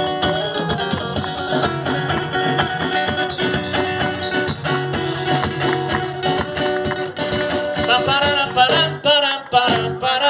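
Carimbó music played by a band: an instrumental passage of plucked strings over a steady beat, with a voice briefly joining in near the end.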